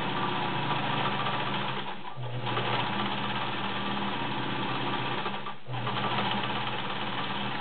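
White 764 sewing machine with its 1.3 amp motor running at speed, its needle clattering as it sews a zigzag embroidery stitch. It eases off briefly twice, about two seconds in and again about five and a half seconds in, then picks up again.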